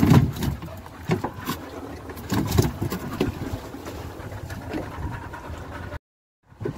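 Steady rumbling noise of a small fishing boat at sea, broken by several knocks and thumps on deck, the loudest right at the start. The sound drops out completely for about half a second near the end.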